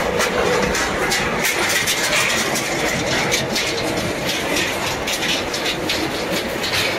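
Aluminum car engine crusher line running: a steady machine hum with a continual irregular clatter of crushed metal pieces.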